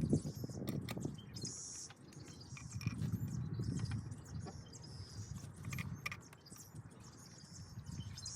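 Scattered light metal clicks and clinks from hand tools and head bolts being worked on an outboard's cylinder head, over a low uneven rumble, with birds chirping in short bursts.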